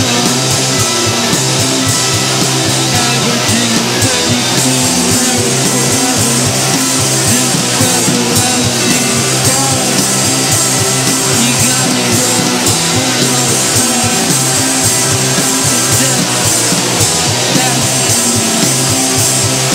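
Loud rock music with electric guitar and drums, dense and unbroken.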